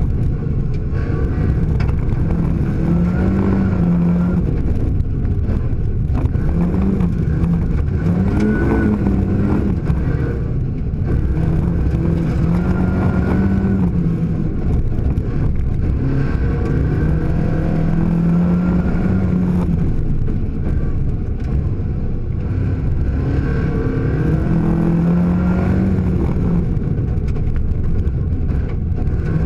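Rally car engine heard from inside the cabin under hard driving, its note repeatedly rising as it revs up and dropping back at each gear change or lift, over a steady rumble of tyres on gravel.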